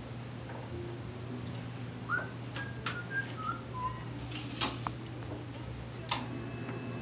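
Someone whistles a few short notes that step downward, over a steady low electrical hum. Clicks and a brief clatter follow as the atlas orthogonal adjusting instrument is handled and positioned, ending in one sharp click.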